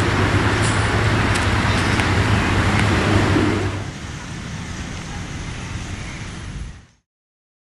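Steady road-traffic noise with a low hum, louder for the first four seconds and then fainter, cutting off abruptly near the end.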